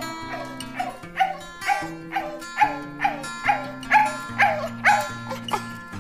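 English bulldog giving a run of short woofs that each drop in pitch, about two a second, over background music.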